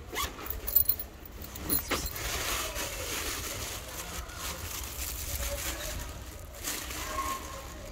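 A car passing on the street, its tyre and engine noise swelling and then fading over a few seconds, with faint voices in the background.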